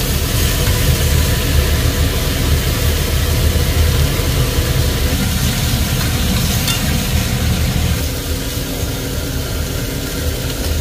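Pork neck slices and kimchi sizzling in a hot frying pan while being stirred and turned, with a steady low rumble underneath.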